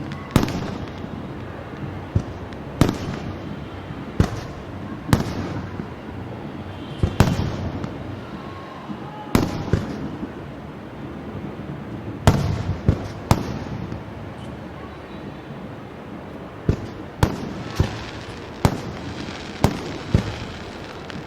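Fireworks going off: about fifteen sharp bangs at irregular intervals, sometimes two or three close together, each with a short rolling echo.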